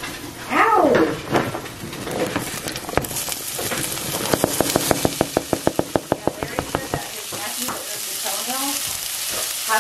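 Chopped onion dropped into hot oil in an enamelled Dutch oven, sizzling steadily from about three seconds in. In the middle comes a fast run of light clicks and scrapes, about seven a second, as the onion is stirred. A brief voice-like sound comes about half a second in.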